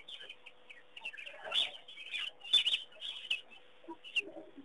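Wild birds chirping: a quick, irregular string of short, high calls, some louder than others.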